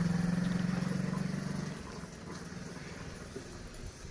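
A passing motor vehicle's engine hums steadily, then fades away about two seconds in.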